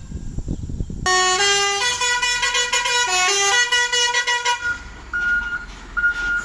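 Truck's basuri 'telolet' multi-tone horn playing a quick tune of stepping notes, starting about a second in over engine rumble and lasting about three and a half seconds. Then two short beeps at one steady pitch.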